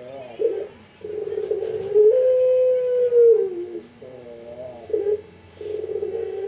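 Puter pelung dove (ringneck dove) cooing in long drawn-out notes: a short warbled coo near the start, then a long held coo that dips in pitch as it ends, more warbling, and a second long coo starting near the end.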